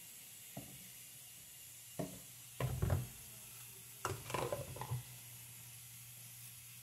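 Plastic funnel and thin plastic bag being handled at a sink: a few light knocks and rustles, in two short clusters around three and four to five seconds in, over a faint steady hum.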